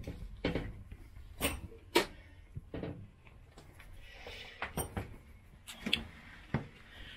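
Scattered sharp knocks and clunks with some rustling as a person clambers about in a narrowboat's cramped stern engine bay, handling the camera; the loudest knock comes about two seconds in.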